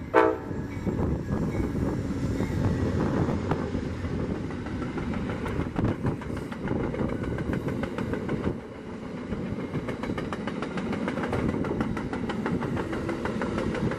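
Amtrak passenger train led by a GE Genesis diesel locomotive passing: a short horn blast right at the start, then the steady rumble and rhythmic clickety-clack of the passenger cars' wheels on the rails.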